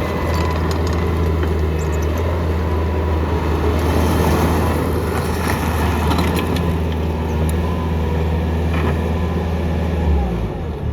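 Bobcat T650 skid steer's diesel engine running steadily, a low even drone that changes and drops near the end.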